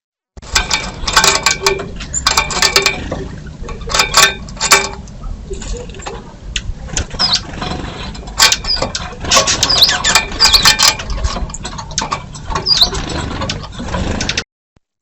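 Small birds at a feeder squabbling, with clusters of sharp, squeaky chirps and chips, some with quick rising and falling notes, over a low steady background hum.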